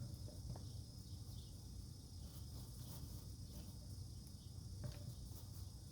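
Faint, steady chirring of insects such as crickets over a low background hum, with a couple of faint clicks.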